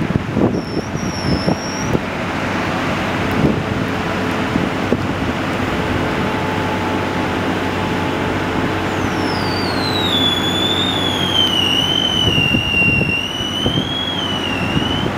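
JLG 1255 telehandler's diesel engine running steadily while the boom raises. From about nine seconds in, a high whine that slides down in pitch and then wavers.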